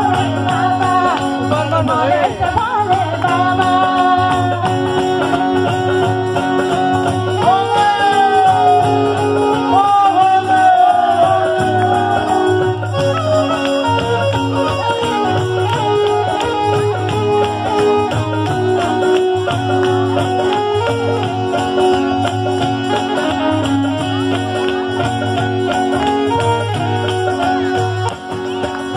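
Live Assamese devotional song to Shiva: a woman's voice singing a gliding melody over tabla, keyboard and acoustic guitar, with a steady beat.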